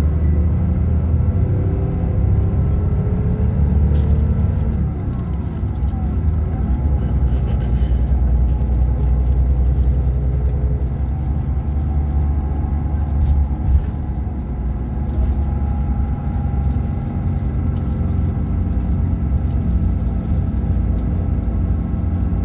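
Steady low rumble of a road vehicle heard from inside its cabin while driving: engine and road noise, with the engine's pitch shifting a few seconds in.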